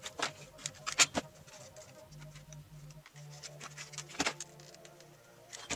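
Stiff cardstock papercraft piece rustling and crackling as it is handled, with a few sharp crackles about a second in and again past four seconds.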